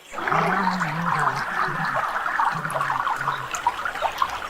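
Rushing, gurgling water, with a low wavering tone beneath it that comes and goes.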